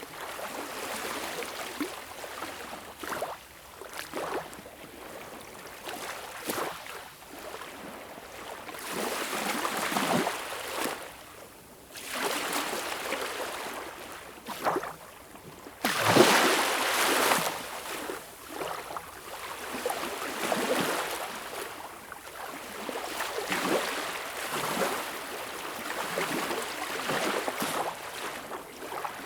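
Small waves lapping and breaking on a beach shore, washing in and drawing back every few seconds; the biggest wash comes about 16 seconds in.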